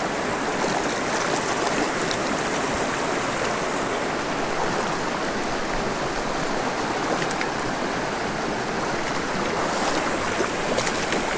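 Small, shallow mountain creek flowing over rocks: a steady rushing of water.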